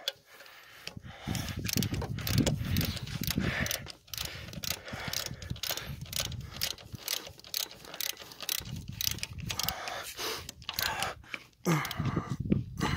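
Ratchet socket wrench clicking in repeated runs of strokes as a bolt is tightened down.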